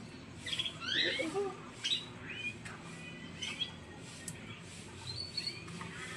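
Domestic canary giving short, scattered chirps and rising call notes with brief gaps between them, not a continuous song.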